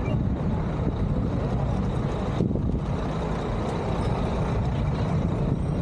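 Steady low rumble of road traffic, with heavy vehicles such as trucks or buses passing.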